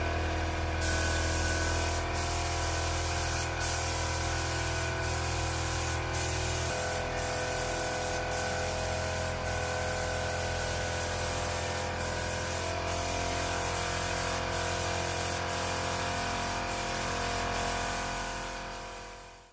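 Steady spraying hiss broken by short gaps about once a second, over a constant multi-tone hum that shifts pitch twice; it fades out at the end.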